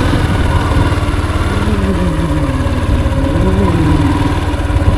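Small motorcycle engine running steadily, with a few wavering tones rising and falling in the middle.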